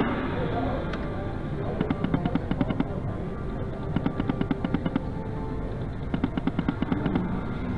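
Duo Fu Duo Cai video slot machine spinning its reels on auto-play: three runs of rapid ticking, each about a second long, come roughly every two seconds as each spin plays out. They sit over a steady background noise.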